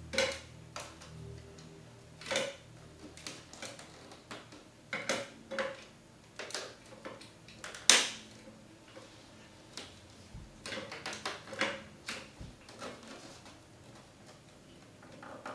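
Plastic marble-run parts clicking and knocking as track pieces and supports are fitted onto a plastic tube frame by hand. The clicks come at irregular intervals, with the loudest knock about eight seconds in.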